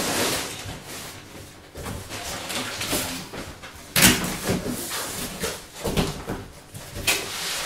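Cardboard TV box sleeve scraping and rustling as it is lifted up and off white polystyrene foam packing, with several knocks of cardboard and foam, the sharpest about four seconds in.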